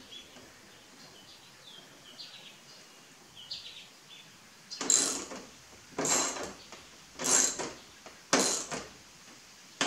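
Socket ratchet wrench being swung back and forth to snug up the grille guard's mounting bolts: each stroke is a short rapid burst of ratchet clicks, four strokes a little over a second apart starting about halfway through, with another one at the very end.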